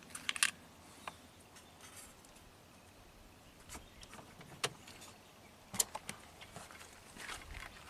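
Light, sharp clicks and small taps at irregular intervals from a blade fuse being pushed back into a truck's under-dash fuse panel and small parts being handled; a close pair of clicks comes about half a second in.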